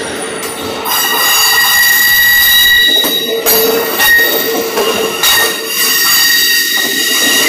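Steel wheels of Amtrak Superliner passenger cars squealing as the train rolls out along curved track: a steady, high-pitched squeal of several tones that sets in about a second in, over the noise of the cars rolling past.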